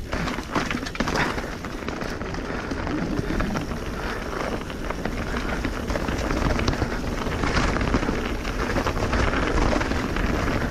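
Canyon Spectral AL 5.0 mountain bike rolling fast down a wet, leaf-covered dirt trail: tyres hissing and crackling over soaked leaves and mud, with frequent small clicks and rattles from the bike over bumps and a steady low rush of air on the camera microphone.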